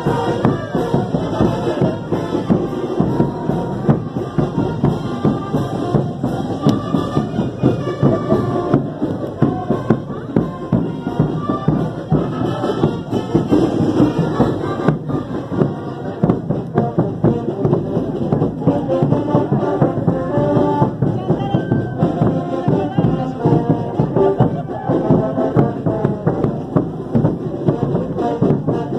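Brass band with drums playing a carnival dance tune, brass over a steady drum beat.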